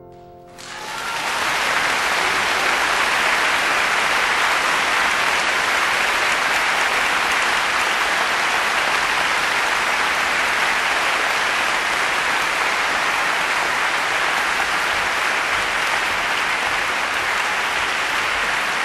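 Audience applauding, swelling in about half a second in over the dying last piano notes and then holding steady.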